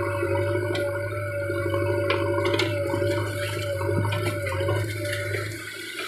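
JCB 3DX backhoe loader's diesel engine running steadily with a high hydraulic whine as the backhoe bucket works through wet mud, with a few sharp knocks in the first three seconds.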